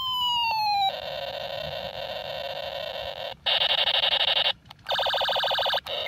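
Battery-powered Spider-Man toy gun playing its electronic sound effects: a falling siren-like tone that ends about a second in, then a harsh electronic buzz, louder for a second in the middle, and a fast pulsing rapid-fire burst near the end.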